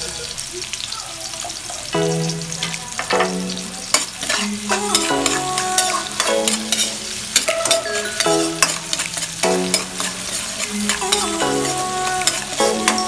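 Food sizzling as it fries in a pan, with repeated clicks of a utensil stirring, over background music.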